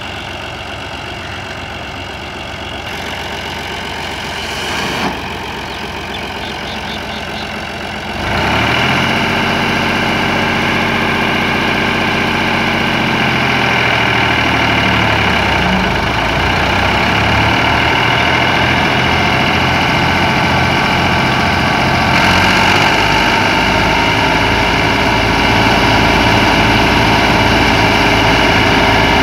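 New Holland Fiat 480 tractor's three-cylinder diesel engine idling. About eight seconds in, the PTO-driven wheat thresher is engaged: the sound jumps louder and whirring tones glide and shift as the thresher spins up. It then runs steadily, stepping up a little again later on.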